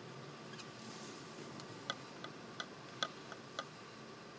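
Car interior while driving on a snowy road: a low steady rumble, with about half a dozen light, unevenly spaced ticks in the second half.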